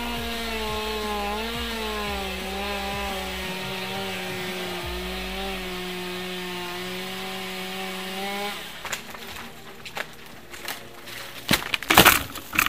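Chainsaw running steadily while cutting deadwood out of an oak, its pitch wavering slightly, then stopping after about eight and a half seconds. Cut pieces of wood then fall and hit the ground with a few knocks, the loudest crashes coming near the end.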